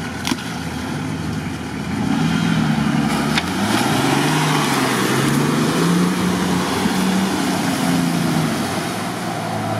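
Off-road SUV engine revving under load as it drives through a muddy creek, its pitch rising and falling and growing louder about two seconds in, with water and mud splashing around the wheels.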